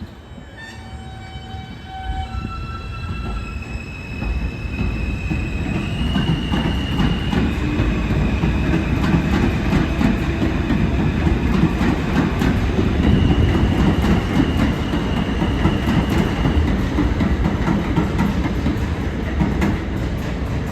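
R160 subway train running through the station, its motors whining in steps that rise in pitch over the first few seconds, then a loud rumble with wheels clattering over the rail joints as it draws near and passes.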